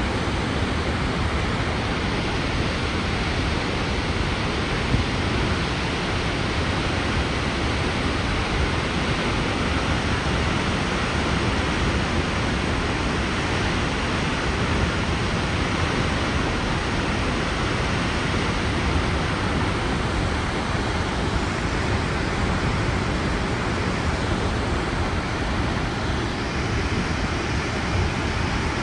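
Snoqualmie Falls, a tall waterfall in high flow, rushing as a steady, loud, even roar of falling and churning water.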